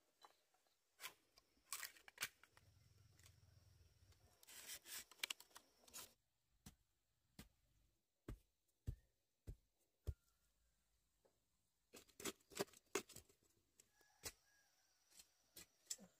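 Faint, scattered sharp clicks and taps with a few brief rustles, in irregular clusters.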